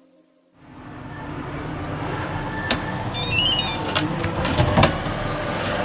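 A train runs with a steady rumble that fades in after a brief silence. Scattered clicks and a short run of high electronic tones sound about three seconds in.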